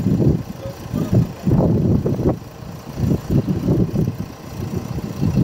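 Heavy diesel engine of a wheel loader running as it loads gravel into a tipper truck, an uneven low rumble that swells and fades.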